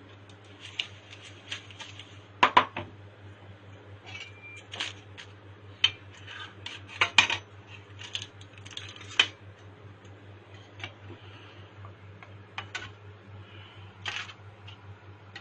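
Metal utensils clinking and knocking against a baking tray in irregular sharp clicks, the loudest about two and a half, seven and nine seconds in, over a steady low hum.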